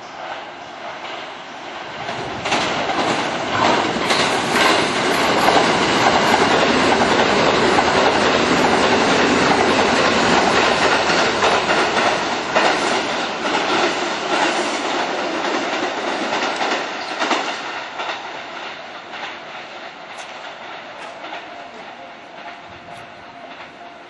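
Electric commuter train passing through a station at speed, its wheels clicking over rail joints and points. The sound builds over the first few seconds, stays loud for about ten seconds, then fades away.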